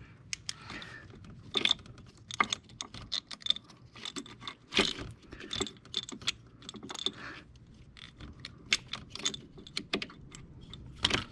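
Irregular clicks, taps and rattles of parts and tools being handled by hand in an engine bay, around the ignition coil and spark plug wells of a Ford 5.4L Triton V8.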